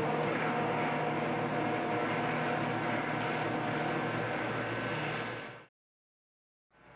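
Steady, loud vehicle noise with a few faint held tones, fading out about five and a half seconds in and then cut to silence.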